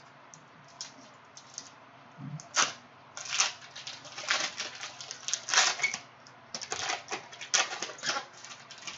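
Crinkling crackles of a Panini Prizm cello pack's plastic wrapper being torn open and handled, mixed with trading cards flicking and sliding against each other. After a few light clicks, the crackles come in quick bunches from about two and a half seconds in.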